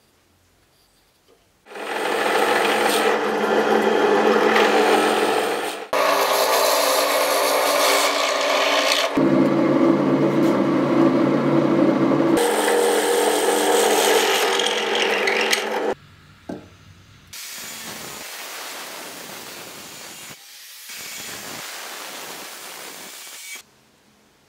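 Benchtop drill press with a brad-point bit running and boring into wood, in several passes: it starts about two seconds in, pauses briefly near six seconds, and changes tone for a few seconds near the middle before stopping about sixteen seconds in. After a click, a quieter steady hiss follows for about six seconds.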